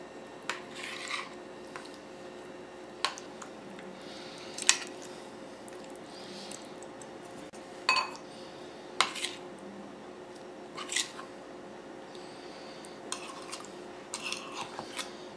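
Metal spoons clinking and scraping against ceramic bowls while chicken pieces are coated in thick tandoori marinade: scattered sharp clinks a second or two apart, with soft scraping between them.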